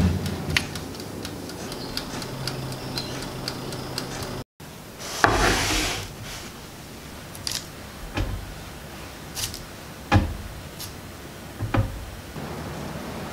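Kitchen handling sounds. First light metal clicks as a baking tray of scones slides into the oven. After a break, a clattering rustle as the hot tray is handled with oven mitts, then single soft thumps about every two seconds as baked scones are set down on a wire cooling rack.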